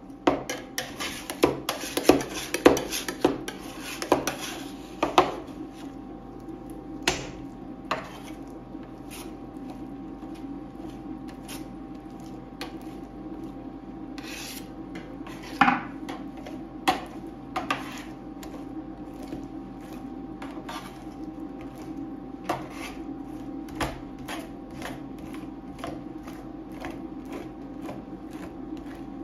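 Metal spatulas on a stainless steel ice cream cold plate: a run of quick chopping taps in the first few seconds, then a spatula scraping the ice cream base thin across the plate, with scattered clicks and knocks of the blade on the metal. A steady hum runs underneath.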